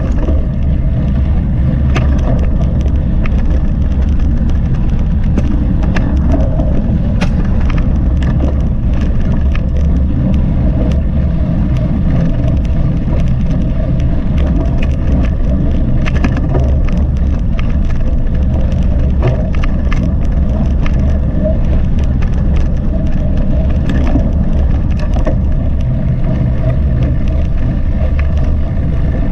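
Mountain bike ridden fast on a trail, heard through a GoPro: steady wind rumble on the microphone and tyre noise on the ground, with frequent sharp clicks and rattles from the bike over rough ground.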